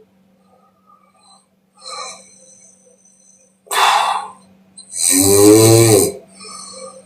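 A woman snoring in deep sleep: a soft breath, then a loud rushing breath about four seconds in, followed by a loud pitched snore lasting about a second, trailing off into a softer breath.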